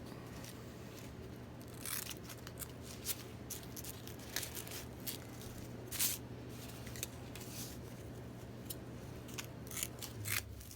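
Scissors cutting the loop (fuzzy) side of Velcro: irregular snips and rustling of the material, over a low steady hum.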